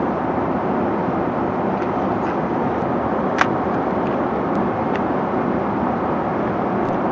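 Steady rushing cabin noise of an airliner in flight, with a sharp click about three and a half seconds in and a few faint ticks.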